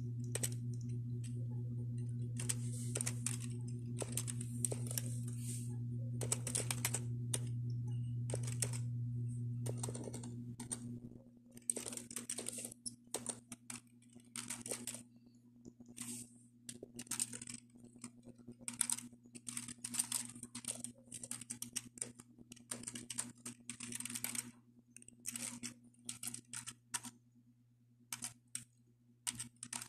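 Irregular runs of quick key clicks: typing on a computer keyboard, in bursts with short pauses. A steady low hum underneath stops about a third of the way in.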